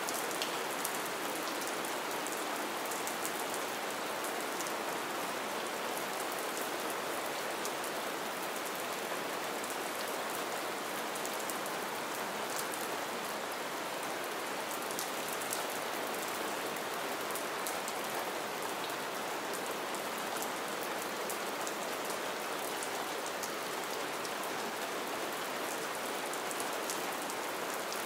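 Steady light rain falling: an even hiss with many small drop ticks.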